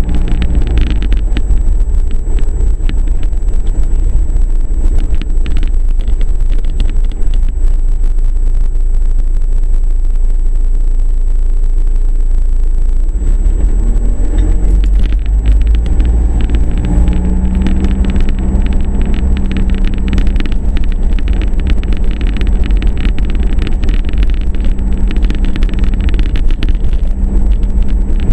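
Car engine and road rumble heard from inside the cabin while driving, a steady heavy low rumble with the engine note rising and falling as the car slows and pulls on.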